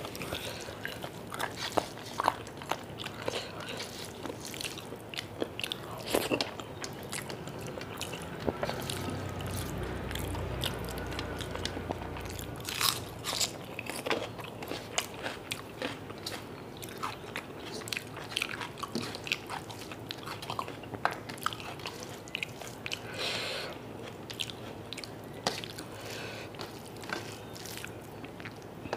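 Close-miked chewing and biting of chicken curry and rice eaten by hand, with frequent short crunches and wet mouth clicks. A low rumble sits under it for a few seconds near the middle.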